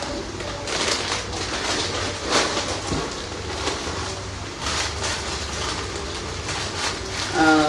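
Plastic packets of hair accessories crinkling and rustling as they are handled, in irregular rustles over a low steady hum.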